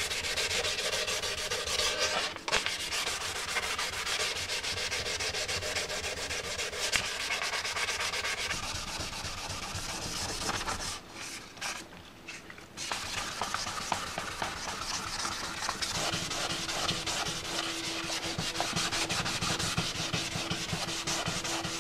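Hand wet sanding of a primed motorcycle fairing panel with 600-grit paper: a continuous scratchy rubbing in rapid short back-and-forth strokes as the primer is smoothed before paint. The rubbing pauses briefly about halfway through, then carries on.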